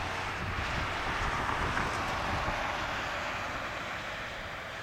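Distant jet aircraft engine noise: a steady rush that slowly fades toward the end.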